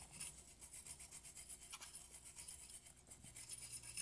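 A 12-gauge bronze bore brush on an aluminum cleaning rod scrubbing back and forth inside the shotgun, a faint, irregular bristly scraping as it loosens powder residue.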